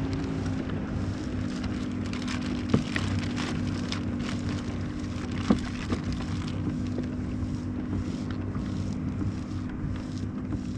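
Steady drone of a boat engine running at constant pitch across the water, over wind on the microphone, with two or three short sharp knocks.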